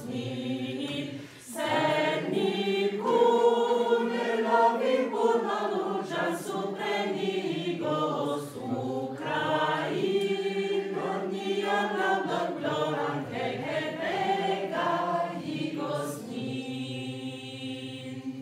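A woman and two young girls singing a Ukrainian song together, ending on one long held note near the end.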